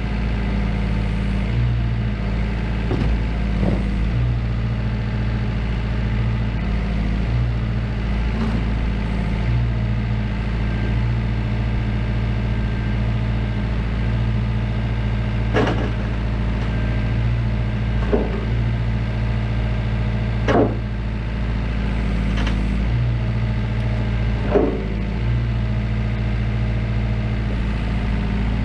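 Diesel engine of a Volvo ECR88 midi excavator running steadily, with short sharp knocks now and then, about eight in all, loudest in the second half.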